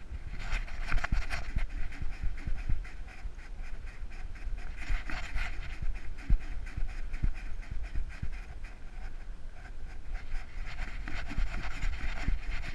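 A dog panting hard and rhythmically right at the microphone while it trots, in several stretches, over low rumble and frequent soft knocks from the jostling harness-mounted camera.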